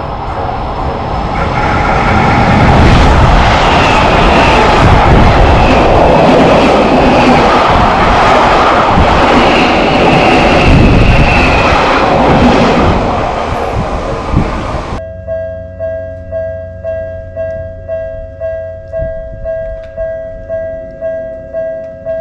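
A train passes a level crossing, a loud, steady rush of wheels and running noise that swells over the first couple of seconds. About two-thirds of the way in it cuts suddenly to a Japanese railroad crossing alarm, an electronic bell ringing evenly about twice a second.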